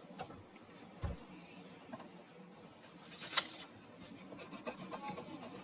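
Coloured pencil scratching on paper while colouring in, faint. There is a soft knock about a second in and a sharp click a little past the middle, and the strokes turn into quick, even back-and-forth scribbling near the end.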